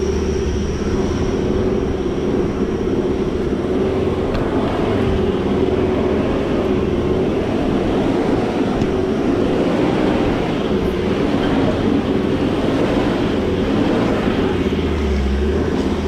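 Off-road 4x4's engine held at high revs under load, pushing for traction on a slippery muddy climb. The sound is steady and loud, its pitch wavering a little.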